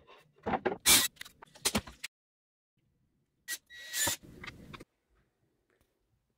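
A melamine board handled on a workbench: a run of sharp knocks, clicks and scrapes in the first two seconds. Then a cordless drill runs for about a second, driving a steel eccentric-connector bolt into the melamine board.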